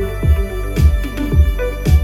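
Electronic dance music played through a JBL Partybox 310 portable Bluetooth party speaker: a deep kick drum that drops in pitch, about two beats a second, over a steady bass line and held synth notes.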